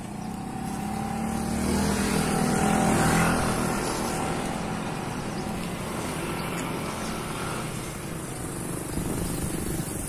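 A motor vehicle's engine passing by, swelling to its loudest about three seconds in and then fading to a steady hum.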